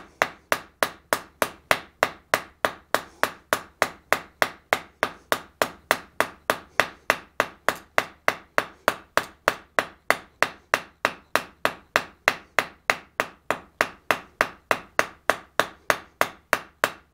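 Hand hammer striking a red-hot bar on the anvil face in a steady rhythm of about three blows a second. The bar's tapered end is being rounded up from octagon to round, rolled in the tongs between blows.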